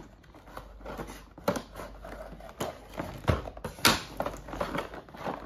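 Cardboard toy box being opened by hand: a paper insert and cardboard flaps rustling, with a few sharp taps and knocks.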